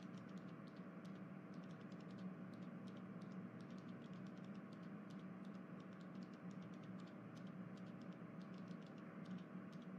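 Faint room tone: a steady low hum with many faint, irregular light clicks scattered through it.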